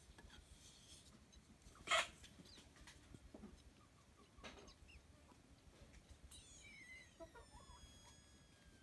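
Mostly quiet, with a sharp click about two seconds in and a few faint ticks. Near the end comes one long high-pitched animal call that falls in pitch and then holds steady.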